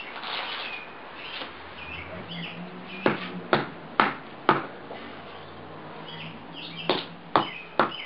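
Sharp knocks of a hand-held hard object striking a golf ball on brick paving, in two runs: four blows about two a second past the middle, then three more near the end.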